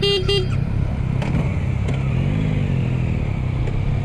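Motorcycle engine running as the bike pulls away and gently accelerates, its note rising a little in the middle. Two short beeps sound right at the start.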